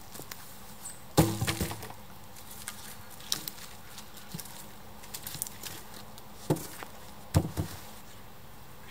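Footsteps on twigs and leaf litter with several sharp wooden knocks as a long wooden pole is carried and bumped against logs, the loudest knock about a second in and two more close together near the end.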